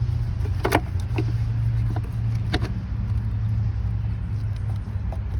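Short creaks and clicks, a few in the first three seconds, as the old plastic thermostat housing is wiggled loose from the engine, over a steady low hum.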